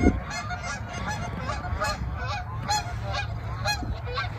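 A flock of geese honking, many short calls overlapping at different pitches without a break. A single thump sounds right at the start.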